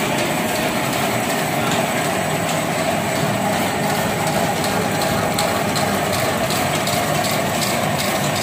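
Silver foil lamination machine running steadily, its rollers turning as foil and paper sheet feed through: an even mechanical din with light irregular ticking.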